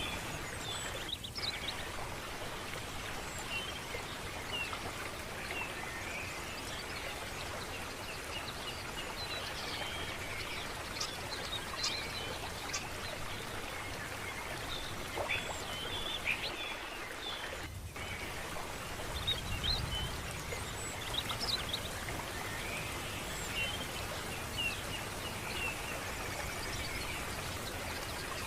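Steady flowing water with many small birds chirping over it throughout. The sound drops out briefly twice, about a second in and near 18 seconds.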